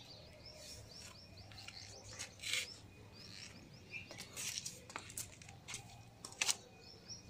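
Faint small birds chirping in quick repeated series, with a few short rustles and scuffs scattered through.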